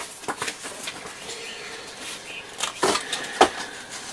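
Loose sheets of paper rustling and being handled, with scattered light clicks and knocks; the sharpest knock comes about three and a half seconds in.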